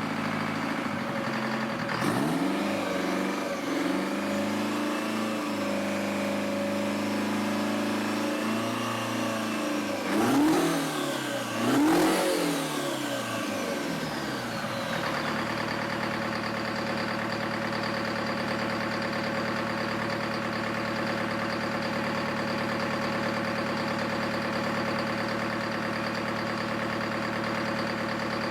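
Freshly rebuilt Detroit Diesel 4-53T two-stroke diesel engine being speed-tested: it revs up from idle about two seconds in and holds at higher speed, is blipped up and down twice around ten and twelve seconds, then drops back to a steady idle.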